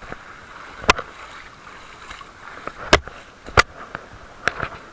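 Water splashing and sloshing around feet wading through shallow seawater, with several sharp knocks and splashes about a second apart.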